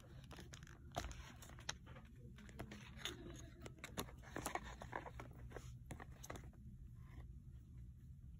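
Faint rustling and scattered clicks over a low steady hum, with the busiest stretch in the middle.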